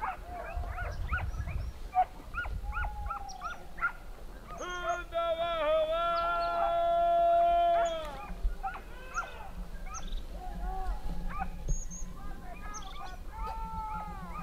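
A pack of hunting dogs barking and yelping in the brush, with short calls coming thick and fast throughout. From about four and a half seconds in, a long steady held note, the loudest sound here, lasts about three seconds before the barking takes over again.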